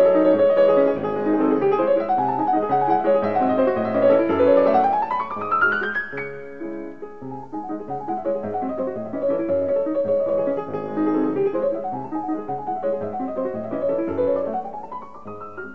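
Background piano music, a flowing stream of notes with a fast run sweeping up the keyboard about five seconds in and again near the end.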